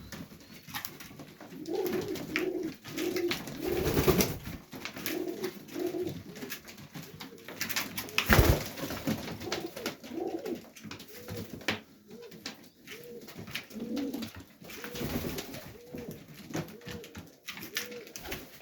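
Highflyer pigeons cooing in a loft: a steady run of short, repeated coos from several birds, with scattered clicks and two louder bursts of noise about four and eight seconds in.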